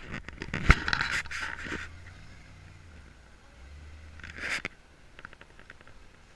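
Off-road rock crawler's engine giving a low rumble as it creeps over a dirt mound. Scraping and rustling on the microphone fill the first two seconds, and a short burst of noise comes about four and a half seconds in.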